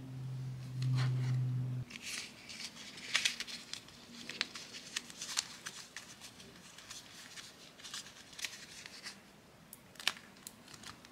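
Soft plastic macaron mold and a yellow plastic lid handled over slime: scattered sharp clicks and crackles as the thin plastic is pressed and flexed to shape and release the slime shell. A low steady hum is loudest at the start and cuts off sharply about two seconds in.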